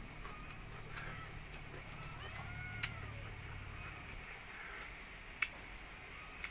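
Close-up eating sounds of a person eating rice and pork by hand from a plate: chewing and fingers working the rice, with a few sharp mouth or finger clicks scattered across the stretch.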